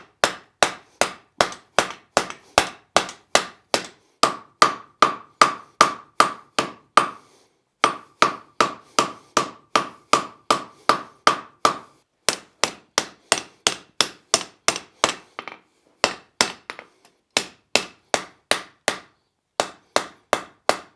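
Blacksmith's hammer forging steel on an anvil: sharp, steady blows about two and a half a second, in runs broken by short pauses. A run of blows in the middle rings on after each strike.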